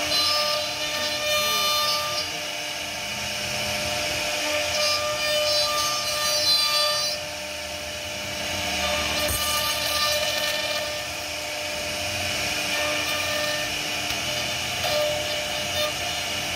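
CNC router spindle whining steadily as its bit carves into a wooden panel, with the rasping noise of the wood being cut. The cutting noise eases for about a second near the middle, then picks up again.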